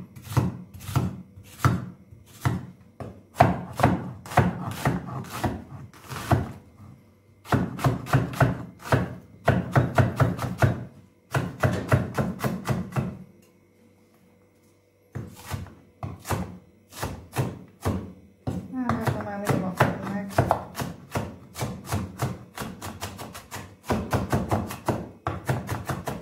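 A cleaver chopping onion on a wooden cutting board: quick runs of knocks, about five a second, in several bursts, with a pause of about two seconds just past the middle.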